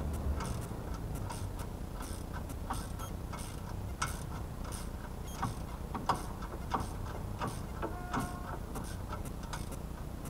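Ratchet wrench clicking in short, irregular runs while exhaust bolts are worked from under a car, with a few sharper metal knocks mixed in.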